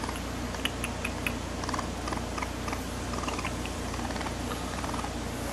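Baby raccoon pawing at a hand, making light, irregular clicks and scratches over a steady low hum.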